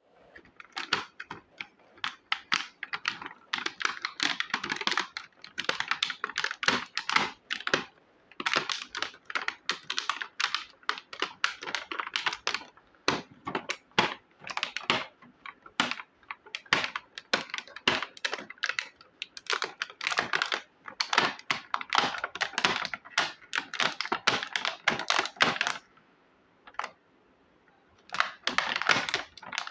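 Miniature plastic toy kitchen pieces and their packaging handled: rapid, irregular clicks, taps and rustles of small plastic parts, with a brief lull near the end.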